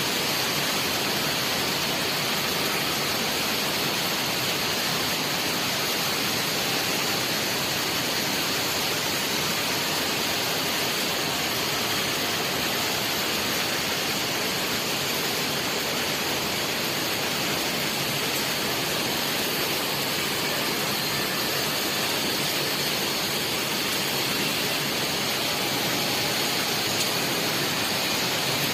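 Heavy typhoon rain falling without a break, an even hiss with no pauses or single drops standing out.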